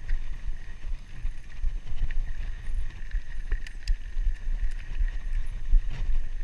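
Rolling and wind noise from a Scott Scale hardtail mountain bike ridden over a dirt pump track: an uneven low rumble of air and tyres on the chest-mounted action camera's microphone, with a few sharp clicks and rattles from the bike.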